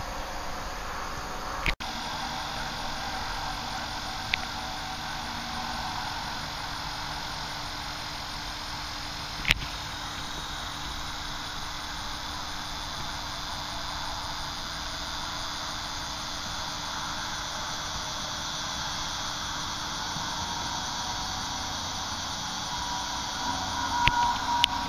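Steady background hiss and hum with faint high steady tones. A few sharp clicks break in about two, four and nine seconds in, and again near the end.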